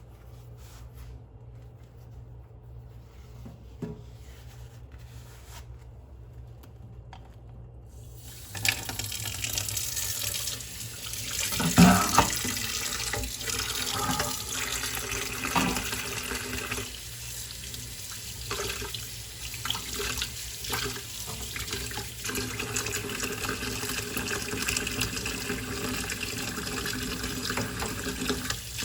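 Kitchen sink tap turned on about a third of the way in, water running steadily into the sink while dishes are washed, with clinks and knocks of dishes, the loudest a clatter shortly after the water starts. Before the tap opens, only a few soft clicks of dishes being handled.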